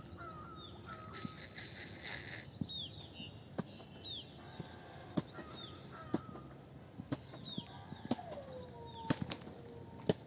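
Faint birdsong: short chirps that curve downward in pitch, repeated about once a second, with scattered soft clicks between them.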